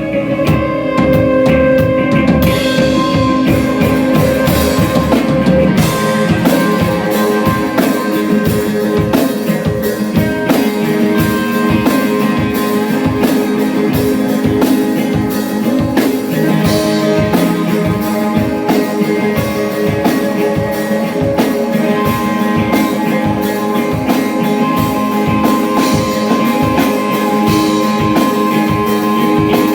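A live rock band playing an instrumental passage, with guitar over a drum kit. The drums settle into a steady, even beat about six seconds in.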